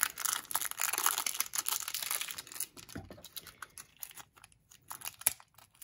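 Thin plastic film wrapper crinkling as it is peeled off an imitation crab stick: dense crackling for the first two or three seconds, then scattered crackles and clicks.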